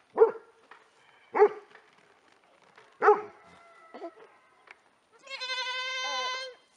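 Nigerian Dwarf goats bleating: three short, sharp bleats in the first three seconds, then one long, level bleat near the end.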